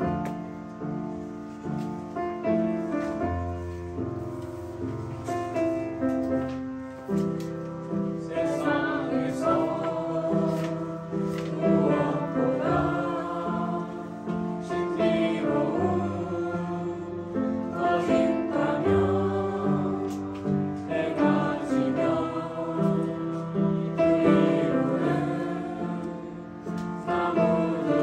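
Upright piano accompanying a group of children and adults singing a song together. The piano plays alone at first, and the voices come in about eight seconds in.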